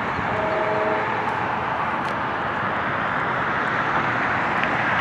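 Steady, even roar of distant engines across an airfield, with no rise or fall. A short steady tone sounds about half a second in.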